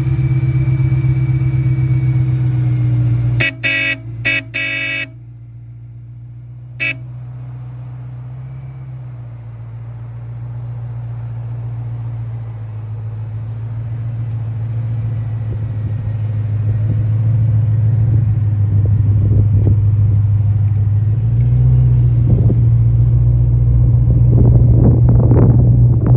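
BMW M3 E93's 4.0-litre V8 running with a steady exhaust hum, as an aftermarket Bosch horn gives about four quick blasts, then one more short toot. The exhaust then grows steadily louder, with a few short revs near the end.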